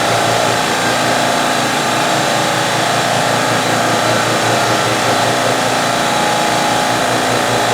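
CNC hobby mill cutting with a half-inch three-flute end mill, an eighth of an inch deep, a steady machining whine, over a loud running air compressor with a pulsing low throb.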